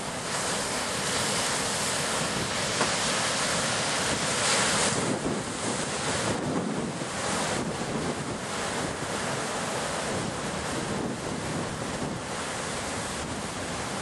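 Wind rushing on the camcorder microphone over ocean surf, a steady noisy rush that swells around four to five seconds in.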